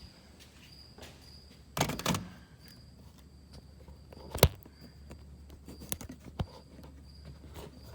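Front suspension of a 2000 GMC Jimmy being rocked, giving a few sharp pops and clicks, the loudest a single sharp pop about four and a half seconds in. The pops come from an almost entirely new suspension, and their cause is unknown to the owner.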